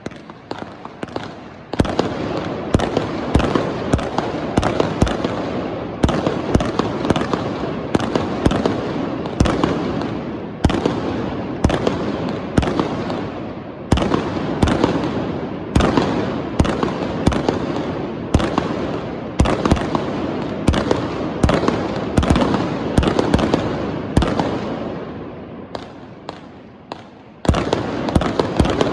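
Fireworks going off in rapid, irregular succession: many sharp bangs with crackling between them. They thin out briefly near the end, then start up loudly again.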